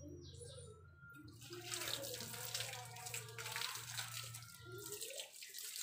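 Water running steadily, starting about a second and a half in.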